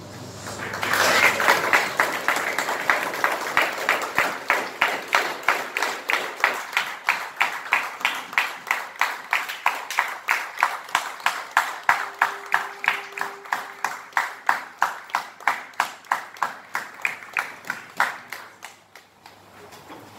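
Audience applause that breaks out about a second in and settles into rhythmic clapping in unison, about three claps a second, before dying away near the end.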